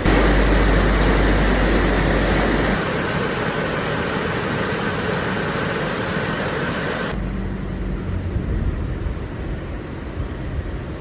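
Steady machinery noise of a woven-bag factory floor, changing abruptly about three and seven seconds in as the sound jumps from one machine area to another.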